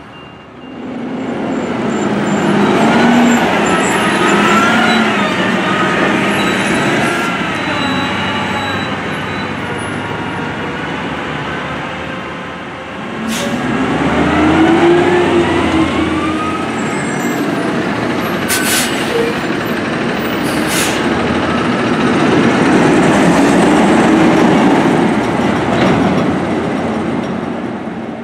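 Heavy diesel side-loader garbage trucks driving past one after another, each engine rising and falling in pitch as it pulls away and shifts gears. The noise swells three times, once per truck, with a few brief sharp noises in between.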